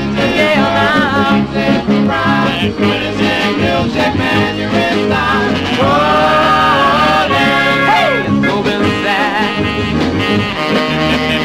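A doo-wop record playing from a 45 rpm single: sung vocals over a band, with a note sliding down in pitch about eight seconds in.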